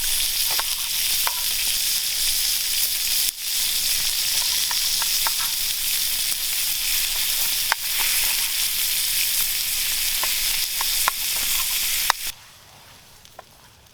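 Meat sizzling as it fries, a steady hiss with scattered small pops and crackles of spitting fat. The sizzle cuts off suddenly near the end.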